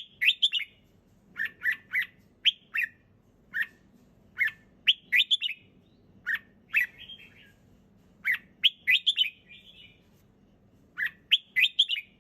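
Red-whiskered bulbul singing: quick phrases of short, clear whistled notes that slide in pitch, with a brief pause near the end.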